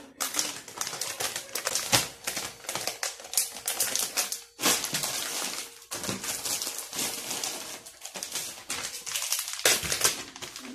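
Cashew nuts poured and rattling into plastic pouches, with plastic packaging crinkling: a dense stream of small clicks with two brief pauses.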